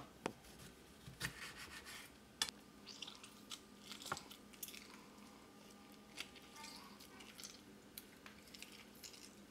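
Faint sounds of a lemon being juiced by hand. A knife cuts through it on a wooden board, then there is soft squelching and a few light clicks and scrapes of a fork against a ceramic plate as the halves are squeezed.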